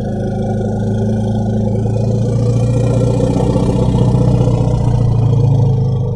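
An elephant's long, low rumble, held steady and swelling slightly near the middle.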